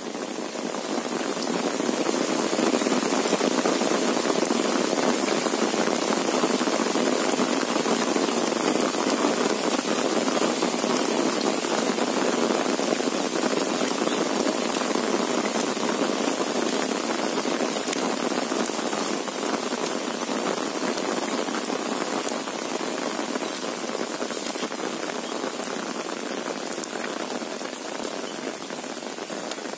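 Heavy monsoon rain heard from under an umbrella: a dense, steady patter of drops on the canopy and the surrounding field, swelling in over the first two seconds.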